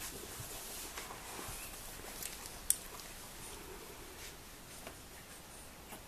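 Bulldog puppies scuffling and pawing at each other on a blanket: faint rustling and scratching with a few small ticks, and one sharp click a little under three seconds in.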